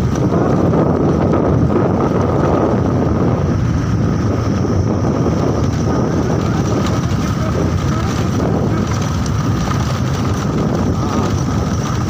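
Wind buffeting the microphone on a moving motorcycle, with the motorcycle's engine running underneath: a loud, steady rush with no breaks.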